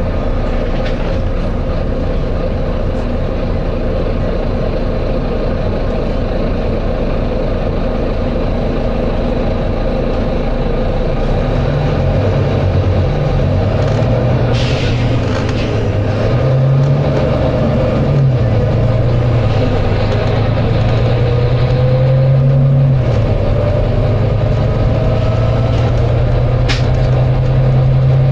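Volvo B9TL double-decker bus's six-cylinder diesel engine running under load, its low drone strengthening about halfway through and stepping up and down in pitch as it goes through the gears, with a rising whine from the drivetrain. A short air hiss about halfway through and a brief hiss near the end.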